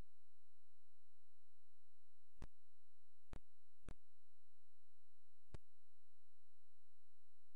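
A steady electronic whine over a low hum, broken by four brief clicks.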